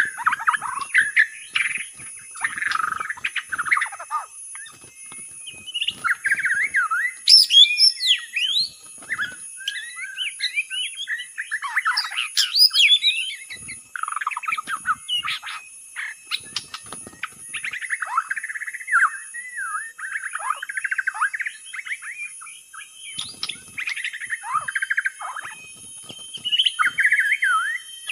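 White-rumped shama (murai batu) singing a rapid, varied song of whistles and chattering phrases, in bursts with short pauses between them, as played on a lure recording.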